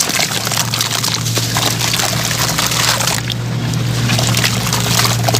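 Hands crushing soaked sand-cement blocks in a basin of water: dense wet crumbling and crackling with sloshing, dribbling water, over a steady low hum.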